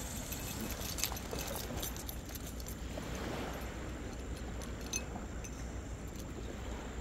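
Steady wind and surf noise at the shore, with a few faint metallic clicks from a fishing rod and reel as the rod is lifted and cast.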